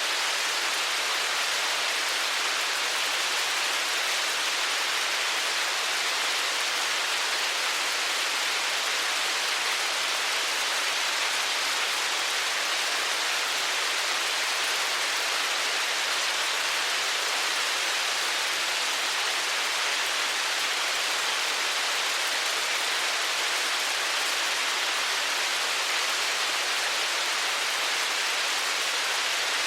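Hailstorm: a dense, steady patter of hail and rain on a surface, with no single hits standing out.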